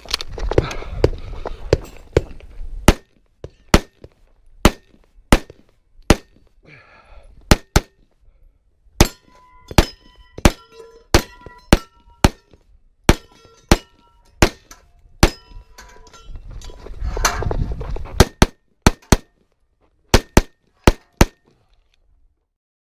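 A long string of handgun shots fired in quick groups, many followed by the ringing clang of hit steel targets. There are two stretches of low rumbling noise between the shots, near the start and past the middle; the shooting stops shortly before the end.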